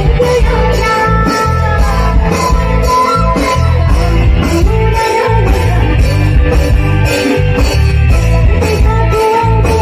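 Live band playing a Bodo song: a woman singing into a microphone over bass guitar, drums and keyboard, with a steady beat.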